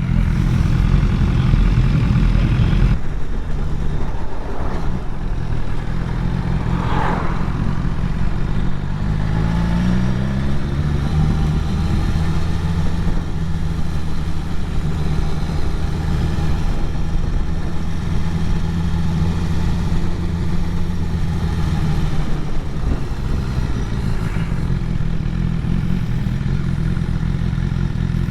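Motorcycle engine running steadily while riding, with wind noise over it; the engine pitch rises about ten seconds in as it speeds up.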